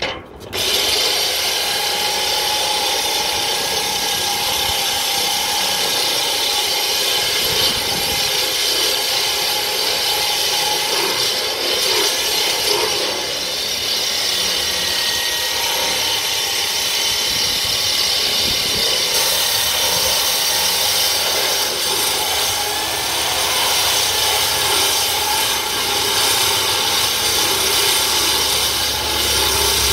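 Angle grinder with a Star Cup wheel grinding paint off a steel plate, running steadily under load with a whining tone over the grinding. It comes on sharply about half a second in.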